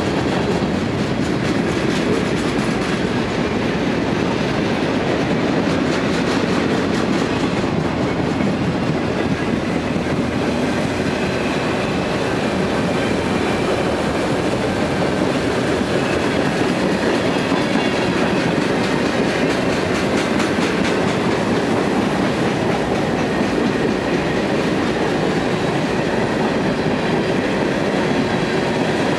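Mixed freight cars (autoracks, boxcars, tank cars and covered grain hoppers) rolling past close by, a steady loud rumble and rattle of steel wheels on the rails.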